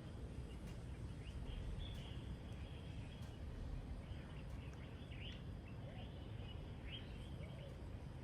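Morning birdsong: scattered short chirps and quick rising calls from several birds, over a steady low background rumble.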